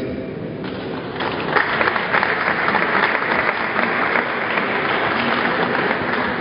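Audience applauding, starting under a second in, swelling over the next second and then holding steady.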